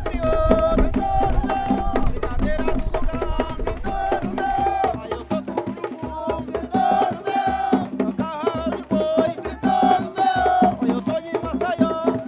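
Wooden ox cart's axle 'singing' as it rolls: a pitched moaning squeal of wood rubbing on wood that shifts pitch slightly every half second or so, over a dense clatter of knocks.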